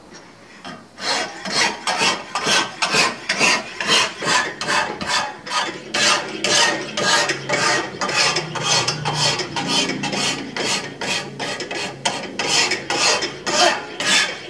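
Hand file rasping back and forth across the bevel of a forged steel knife blade held in a filing jig. The even strokes start about a second in and come about two or three a second.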